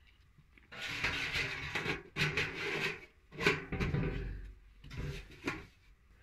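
Perforated aluminium steamer rack scraping and clattering against the inside of a large aluminium tamale pot as it is lowered in and pushed into place, with a heavier knock about three and a half seconds in.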